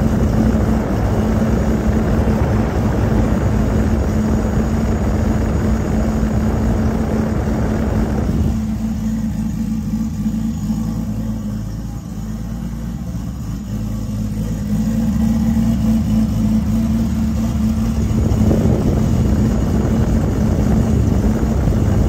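Toyota 2JZ inline-six engine idling steadily, with a constant low hum. From about eight seconds in until about eighteen seconds the sound goes duller and a little quieter, then comes back up.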